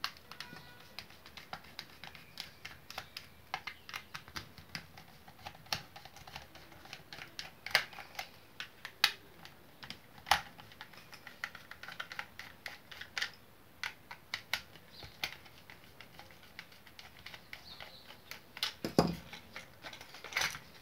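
A small screwdriver working screws out of a hot air brush's plastic housing: a run of quick, irregular light clicks and ticks, with a few louder knocks.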